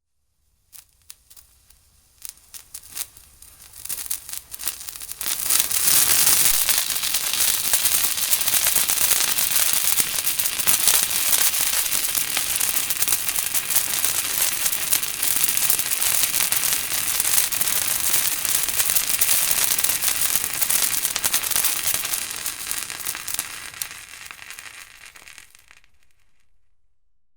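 Firecrackers going off: scattered sharp pops that quicken over the first few seconds into a dense, continuous crackle, which thins and fades out near the end.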